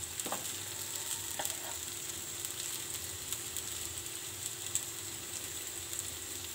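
Spiced potato slices sizzling in hot oil on a tawa, with a steady crackling hiss. A steel spatula scrapes and turns them a few times.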